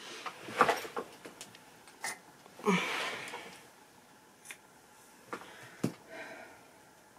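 Scattered hand-work noises: dry broomcorn bristles rustling in the hands, and a few short snips and clicks as waxed polycord is cut with scissors. A longer, louder noise comes about three seconds in.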